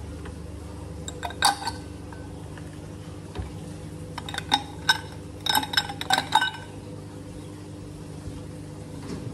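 Ice cubes dropped into a ribbed drinking glass, clinking and ringing against the glass: a couple of clinks about a second and a half in, then a quick run of clinks around the middle as more ice falls in. A steady low hum runs underneath.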